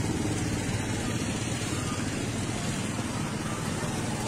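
Small motorcycle engine running steadily at low revs close by.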